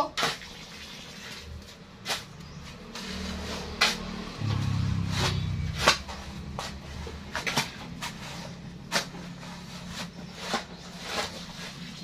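Hand digging tools striking and scraping into sandy soil: irregular sharp knocks, about one every half second to a second. A low rumble swells about three seconds in and fades about six seconds in.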